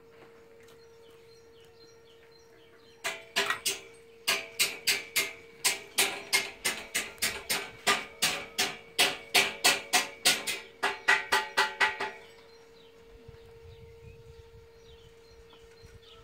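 A run of sharp, ringing taps, two to three a second, starting about three seconds in and stopping about twelve seconds in, over a faint steady tone.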